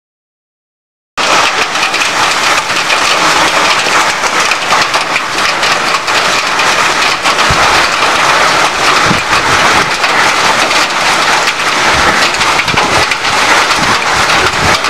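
Heavy hail and rain coming down hard, a dense steady hiss peppered with many sharp hailstone strikes. It starts abruptly about a second in.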